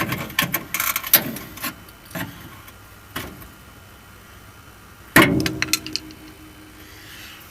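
Small metal parts clinking and knocking as they are handled, with one louder metallic clang about five seconds in that rings on briefly.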